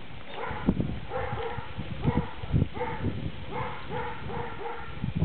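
Birds calling: about ten short calls in irregular groups, mixed with dull low thumps.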